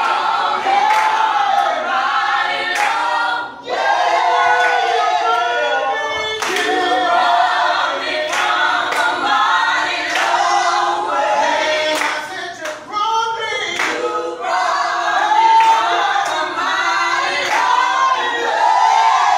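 Mixed group of men and women singing together a cappella, with scattered hand claps.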